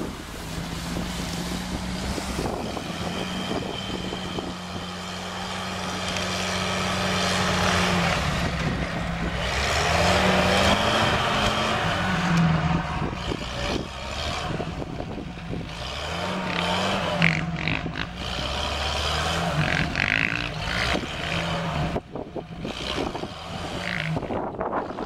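Off-road 4x4 engines labouring and revving up and down under load, a Lada Niva forcing through dense reeds and then a UAZ wading through marsh water, with water sloshing around the wheels.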